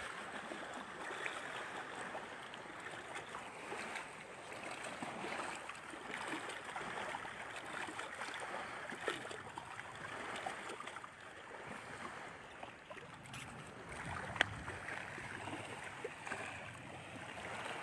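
Steady rushing outdoor noise with a few faint clicks, the sharpest about fourteen seconds in.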